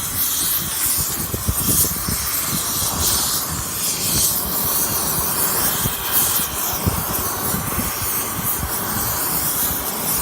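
Gas torch flame hissing steadily as it burns old epoxy resin filler off a metal sculpture's foot, with irregular crackles. The torch is clearing away old epoxy repairs to prepare the metal for welding.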